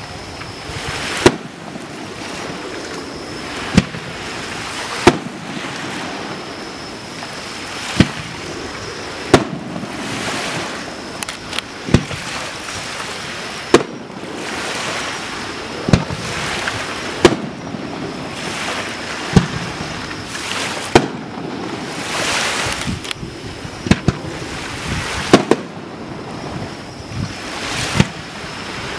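Aerial firework shells bursting: a sharp bang every second or two, about seventeen in all, over a steady rushing noise between them.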